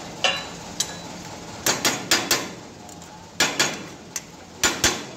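A hammer striking a steel plate clamped in a bench vise: a couple of light knocks, then about eight sharp blows in quick groups of four, two and two.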